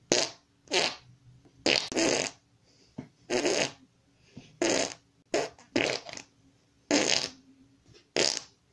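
Armpit farts: a hand squeezed in the armpit, making a run of about nine short fart noises spaced roughly a second apart.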